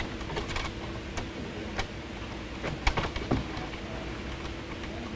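Scattered small clicks and taps of electrical wires and connectors being handled and fitted at a hot tub's control box. The clicks come at irregular times, the sharpest a cluster about three seconds in, over a faint steady hum.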